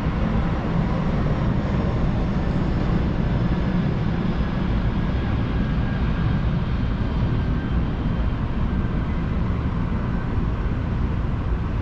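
Steady low rumble of background noise, which the owner puts down to construction work in the area.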